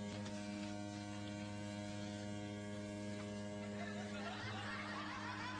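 Steady electrical mains hum with a stack of even overtones. About four seconds in, faint laughter starts over it.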